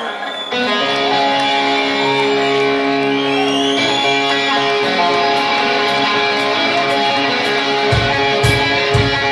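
Live guitar music: strummed chords come in about half a second in and ring out steadily, with several heavy low thumps entering near the end.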